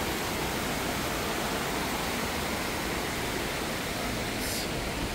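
Shallow, fast river rushing over a stony bed: a steady, even rush of water.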